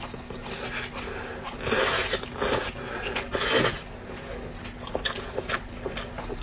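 Close-miked eating sounds: a few wet chewing or slurping bursts in the first half, then a string of short, light clicks and smacks.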